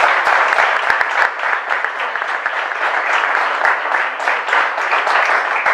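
Audience applauding at the end of a poem reading, the clapping thinning a little toward the end.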